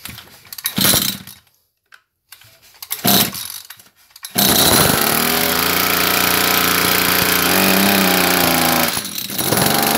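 Tanaka two-stroke engine on a backpack sprayer being pull-started: two yanks of the recoil starter, then it catches about four seconds in and runs fast and steady, its pitch wavering and dipping briefly near the end. It is running rich, its carburettor deliberately set to give too much fuel.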